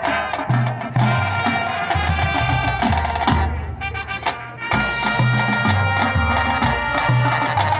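High school marching band playing: brass and percussion together, thinning out and dropping in level a little past halfway before the full band comes back in.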